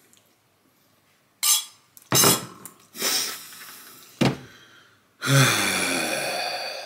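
Table noises at a finished meal: a metal spoon clinking against a ceramic bowl, a plastic juice bottle lifted and set down with a knock on the wooden table, and a man's loud breathy exhales, ending in a long groaning sigh.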